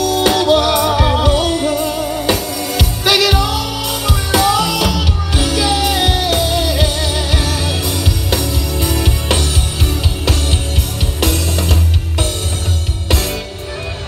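Live band playing amplified music: a male lead vocalist singing a melody with vibrato over a drum kit, electric guitar, keyboard and deep, heavy bass.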